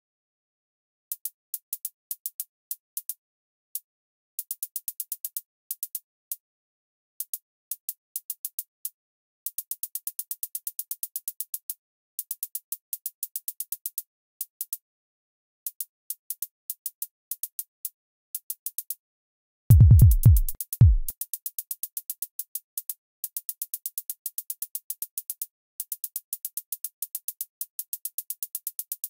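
Car-logo jingles redone as a drum-machine beat: short runs of fast, crisp hi-hat-like ticks in changing rhythms with brief gaps between them, and two heavy kick-drum booms that drop in pitch about twenty seconds in.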